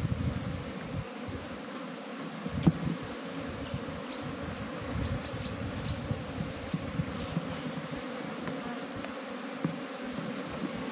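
A mass of honeybees buzzing steadily on an opened wooden hive, with one brief knock a few seconds in.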